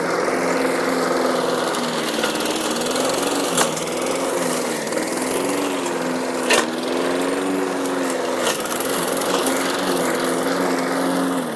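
Petrol walk-behind lawn mower running steadily while climbing a steep slope, its engine note wavering slightly as the load changes, with three sharp clicks spaced a couple of seconds apart.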